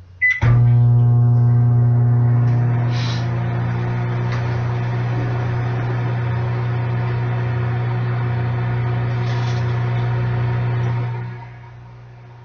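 Microwave oven: a short keypad beep and a click, then the oven starts up with a loud, steady low hum, runs for about ten seconds and winds down near the end.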